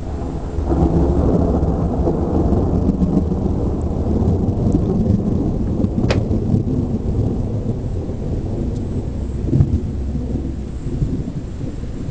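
Thunder rolling in a long, deep rumble that swells about a second in, with a sharp crack about halfway through and another surge near the end.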